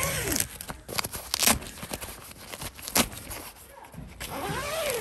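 Nylon tent fabric being handled and pulled: two sweeping rasps, about a second each, one at the start and one near the end, with two sharp clicks in between.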